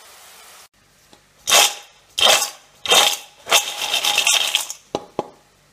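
Oil sizzling briefly, then fried cassava sticks shaken in a metal bowl: four rattling, scraping tosses about two thirds of a second apart, the last one longer, followed by two short knocks.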